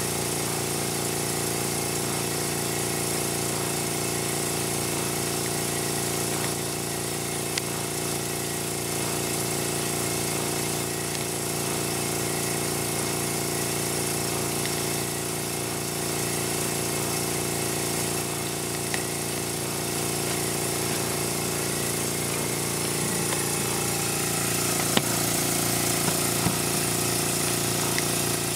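Small electric air compressor running steadily with a hum, supplying compressed air to a model steam engine.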